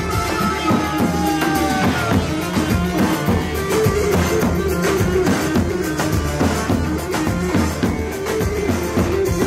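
Turkish folk dance music: a davul bass drum beating a steady rhythm under a pitched melody line.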